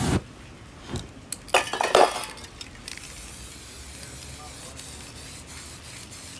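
A brief whoosh of ignited spray paint flaring across the canvas right at the start. About two seconds in comes a short burst of clinking, after which only a low steady background remains.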